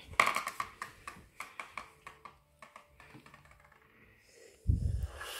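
A run of light clicks and taps, then about 4.7 seconds in an aerosol whipped-cream can sprays: a short low blast followed by a steady hiss that is still going at the end.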